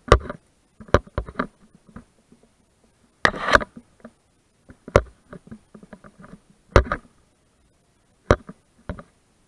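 A climber's hands, rock shoes and gear knocking and scraping on limestone: a string of irregular sharp knocks, with a longer scrape about three seconds in.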